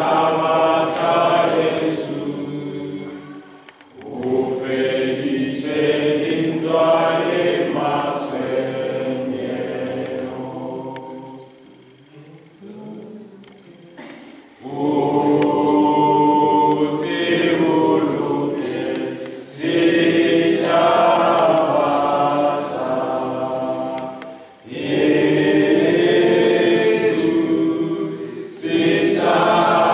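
A group of people singing together unaccompanied, in long phrases with short breaths between them and one longer pause about halfway through.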